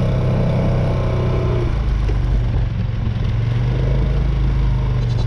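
Four-wheeler (ATV) engine running steadily while riding, its note shifting a little about two seconds in.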